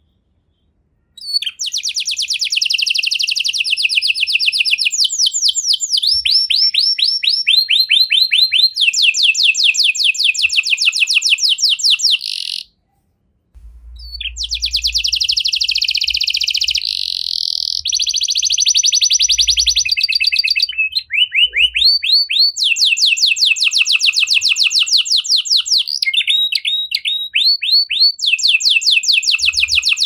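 Domestic canary singing a long song of rapid trills, each a quick run of repeated notes, switching to a new trill every second or two. It starts about a second in and breaks off for under a second about twelve seconds in, then goes on.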